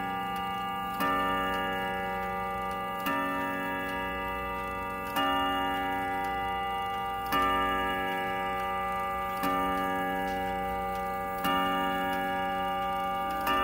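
Howard Miller Jennison triple-chime wall clock striking on its chime rods: slow, evenly spaced strikes about two seconds apart, each a ringing chord that fades before the next. The steady, unhurried count is typical of the hour strike.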